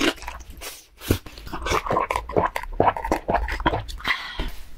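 Close-miked mouth sounds of eating black bean noodles: a loud slurp of a big mouthful at the start, then wet, smacking chewing in many quick strokes.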